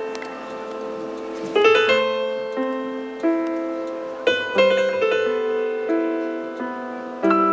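Solo piano playing slow chords, each struck and left to ring and fade before the next.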